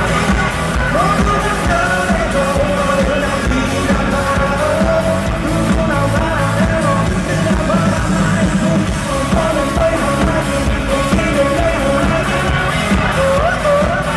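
Live pop-rock band music with a singing voice over a drum kit keeping a steady beat.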